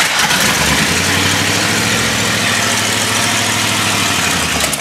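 Rebuilt Chrysler 331 Hemi V8 on its first start in decades: it catches after cranking about half a second in and runs steadily for about four seconds, then begins to die near the end.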